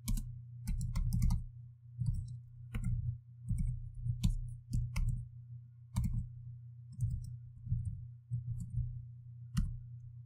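Computer keyboard keystrokes: irregular sharp clicks, singly and in short runs, as a line of code is typed, over a steady low hum.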